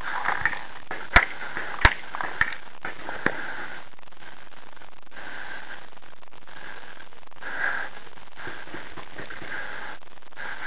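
Paintball fire: four sharp cracks in the first few seconds, the second and third loudest, then recurring soft breathy rushes over a steady hiss, like breathing inside a paintball mask.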